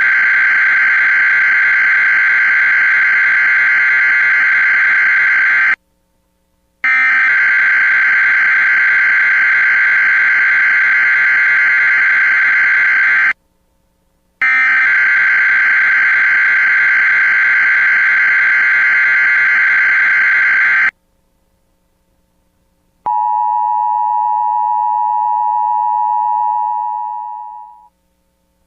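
Three long bursts of warbling emergency-alert data tones, each about six seconds with a second's gap between them, announcing a new weather alert. After a short pause comes a steady two-pitch alert attention tone that fades out after about five seconds.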